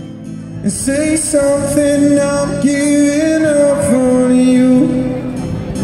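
A male busker singing slow, long held notes into a microphone through a small amplifier, with an acoustic guitar underneath.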